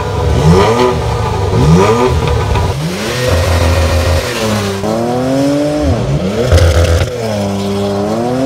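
Porsche Macan GTS's twin-turbo V6 revving: short blips about once a second, each rising quickly in pitch, then longer revs that dip and climb again.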